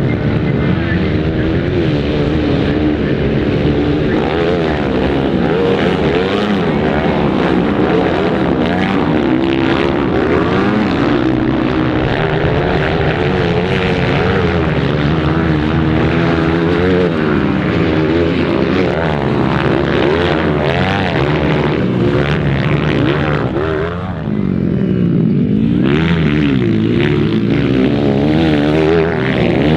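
Several motocross dirt-bike engines racing at once, their high buzzing pitches rising and falling as the riders open and close the throttle through the track.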